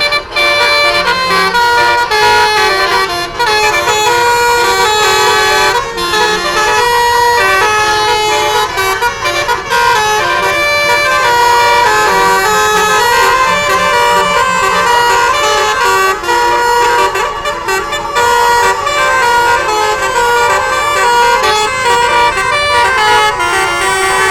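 Bus basuri musical air horns playing loud, continuous melodies that step quickly from note to note, several horns sounding over one another in a telolet horn battle.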